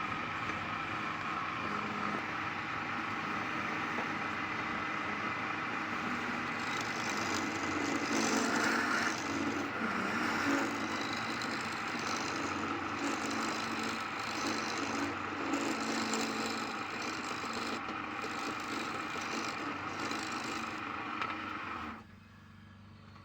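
Wood lathe running steadily while a palm wood bowl is turned, the tool's cutting noise swelling and easing over the motor's hum; the sound cuts off suddenly near the end.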